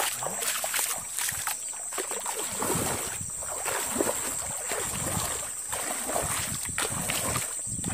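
Feet wading through shallow muddy floodwater, with repeated sloshing splashes as each step pushes through the water.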